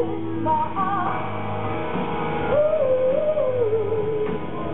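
Live rock band performance: a woman singing long, wavering held notes over electric guitar.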